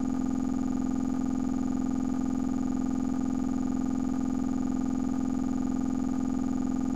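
Steady electronic drone: a held chord of many pitches, unchanging in pitch and level throughout.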